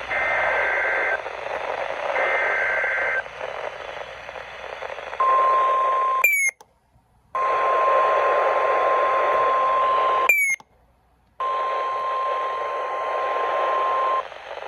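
Emergency Alert System tones received over a weather radio: two one-second warbling bursts of the SAME digital header, then the steady 1050 Hz NOAA Weather Radio warning tone, over radio hiss. The alarm tone drops out to silence twice for under a second, each gap edged with a short rising chirp.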